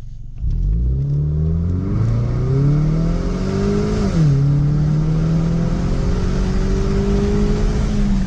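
2017 Ford Mustang EcoBoost's turbocharged 2.3-litre four-cylinder, on a preloaded SCT tune, launching hard in a 0-60 mph run. The revs climb steeply, drop at an upshift about four seconds in, then rise slowly again until they fall at another shift near the end.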